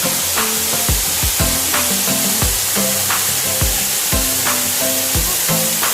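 Steady rushing hiss of falling water from a waterfall, with background music laid over it: a melody of held notes and a low beat about twice a second.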